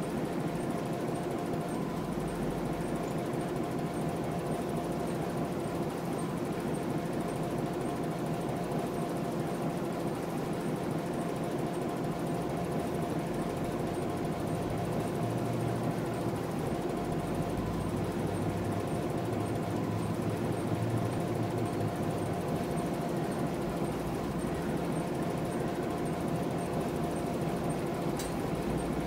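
Model diesel locomotive running with its goods train: a steady mechanical hum with a few held tones, and a low rumble that grows a little from about halfway as the train draws nearer.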